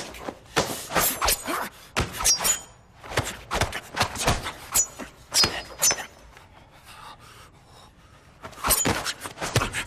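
Movie fight sound effects: a rapid flurry of punch, block and body-hit impacts, some with a short bright ring. It goes quieter about six seconds in, and a few more hits come near the end.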